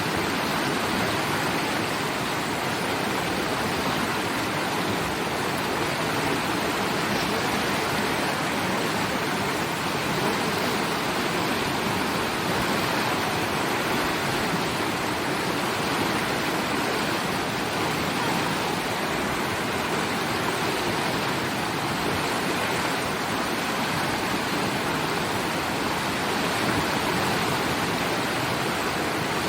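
River water rushing steadily, an even, unchanging wash of flowing water.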